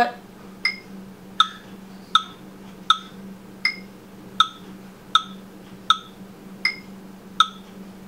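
Electronic metronome clicking at about 80 beats a minute in four-beat bars, every fourth click higher in pitch to mark the downbeat, over a faint steady low hum.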